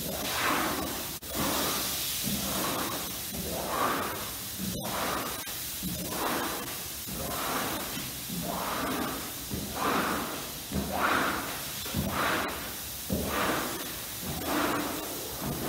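Wooden rug-cleaning paddles pushing water across a soaked rug: repeated swishing, sloshing strokes, about one a second.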